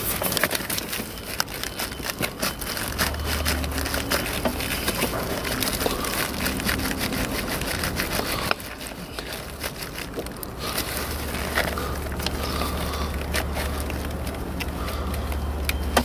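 Gloved hand wiggling a Mk1 Audi TT's plastic heater core hose coupler side to side and in and out to free it: irregular rubbing, crackling and small clicks from the coupler and the rubber hoses around it. A low rumble comes in briefly about three seconds in and again from about eleven seconds on.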